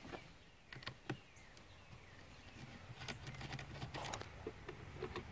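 Faint scattered clicks and scrapes of a screwdriver undoing the ATV battery's terminal bolts, over a low steady hum that comes up about halfway through.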